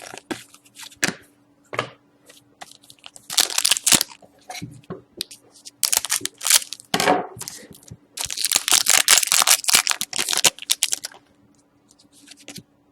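Trading-card packaging crinkling and tearing as cards are handled, in three bursts of crackly rustle, the longest in the second half.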